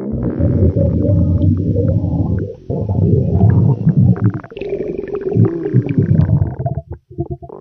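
Stomach gurgling and growling sound effect: a long, bubbly low rumble that breaks off briefly about two and a half seconds in, then carries on and stops shortly before the end.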